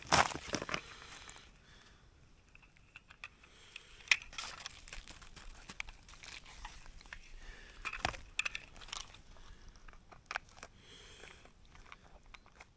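Handling noises of a pike being hung on a hand-held scale: scattered clicks, knocks and rustling, loudest in the first second and again about eight seconds in.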